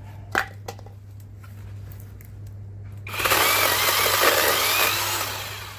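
A couple of sharp clicks, then a cordless battery-powered electric chainsaw, a YOVOT 12-inch, runs and cuts through a small branch for about two seconds starting about three seconds in. Its whine wavers and then dies away near the end.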